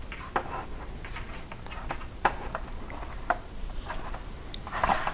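Light scattered clicks and taps of a metal ruler and marker pen handled against a metal gear-door hinge part while a center line is measured and drawn, with a brief scrape near the end.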